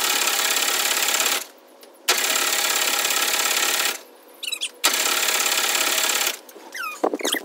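Starter cranking the air-cooled VW flat-four engine three times, each try lasting under two seconds and stopping abruptly without the engine catching.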